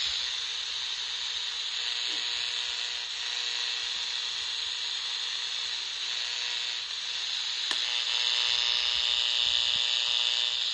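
Static from a Kaito KA-228 multi-band portable radio's speaker: a steady hiss with a faint, even buzz beneath it. This is radio-frequency interference that the owner suspects is coming from the house wiring. A single click comes about three-quarters of the way through, and the sound grows slightly louder after it.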